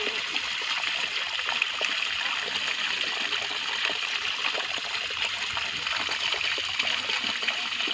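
Thin stream of water pouring steadily from a channel cut in mud into the pooled water of a woven bamboo basket trap, a continuous splashing trickle.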